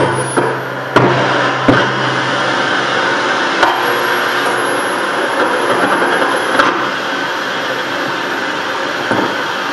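Noise music played live: a dense, steady wall of hiss and static with sharp cracks cutting through it, one at the start and several more over the first seven seconds. A low hum under it drops out about two and a half seconds in.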